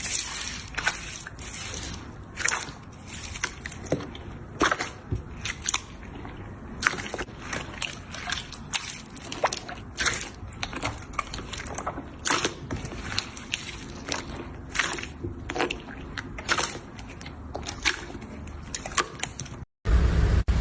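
Slime being squished and pressed, giving irregular sticky pops and crackles. Near the end the sound cuts out for a moment and a louder, deeper sound begins.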